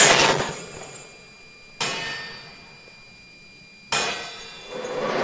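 Heavy metal clangs in a film battle soundtrack: a loud crash right at the start, then two sharp metallic strikes about two seconds apart, each ringing on and fading slowly.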